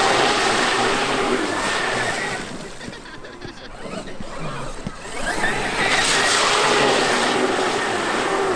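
Traxxas X-Maxx RC monster truck running: the electric motor's steady whine over a loud rush of noise. It fades away about two and a half seconds in and comes back strong about five and a half seconds in.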